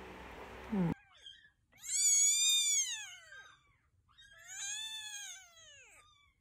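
Very young kitten being bottle-fed, mewing twice: two high, thin cries about a second and a half long, each rising and then falling in pitch.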